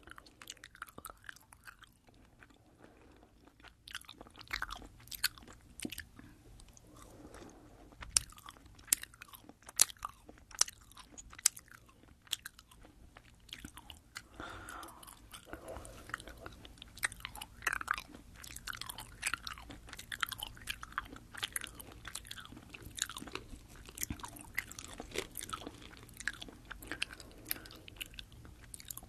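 Close-up chewing of soft, sugar-coated sour gummy candies right at a binaural microphone: a stream of small sharp wet, sticky mouth clicks, sparse at first and coming thick and fast from about a quarter of the way in.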